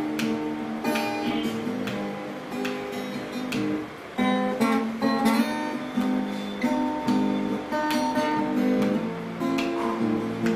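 Acoustic guitar played solo, chords strummed by hand, with a short dip in the playing about four seconds in.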